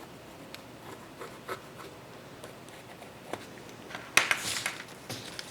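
Cardboard being cut out and handled: scattered small clicks and scrapes, with a louder rasping scrape about four seconds in.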